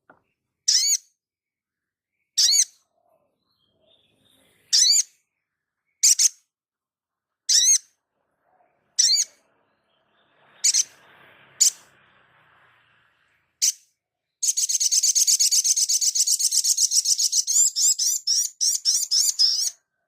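A brown-throated sunbird (sogok ontong) singing. It gives a series of short, high, sharp call notes about every second and a half, then breaks into a long, rapid, high trill a little after halfway that splits into quick separate notes near the end.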